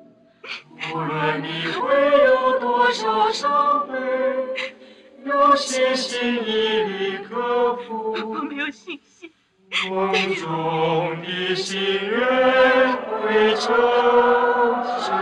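Wordless choir singing a slow, sad melody from the film score, with a brief pause about two-thirds of the way through.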